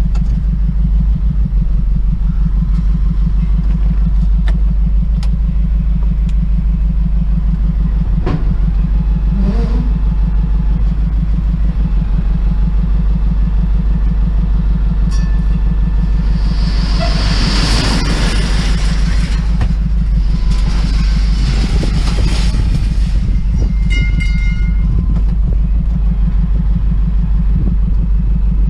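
Vehicle engine running steadily with a low, even drone. A loud hissing rush comes in for several seconds past the middle.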